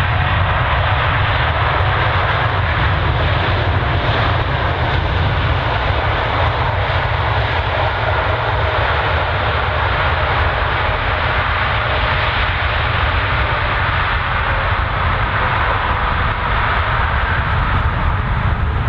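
Boeing 777 freighter's twin GE90 turbofan engines at takeoff thrust, a loud steady jet roar with a deep rumble as the aircraft rolls down the runway to lift-off.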